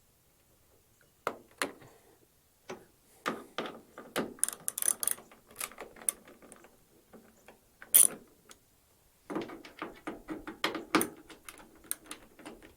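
Plastic clicks and rattles of a Ford Transit sliding door's old inside door handle being worked loose by hand, in irregular clusters with one sharp louder click about eight seconds in.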